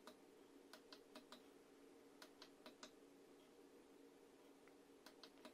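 Faint small clicks, several in quick clusters, from a tactile push button being pressed to cycle the flashlight driver's modes, over a faint steady hum; otherwise near silence.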